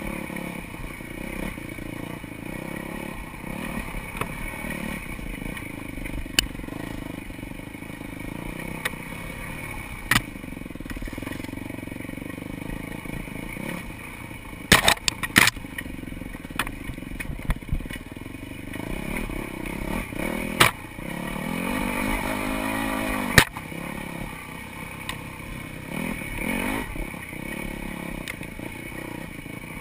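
Dirt bike engine running on a rough wooded trail, with its note rising and falling as the rider works the throttle and one clear rev-up about two-thirds of the way in. The bike clatters over the ground, with a cluster of sharp knocks about halfway and more sharp knocks later.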